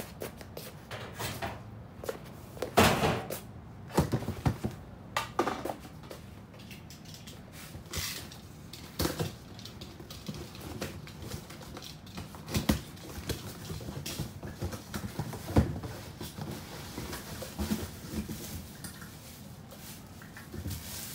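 Handling noises in a small room: scattered knocks, clicks and clunks of objects being moved and set down, with the sharpest knocks about three seconds in and again past the middle.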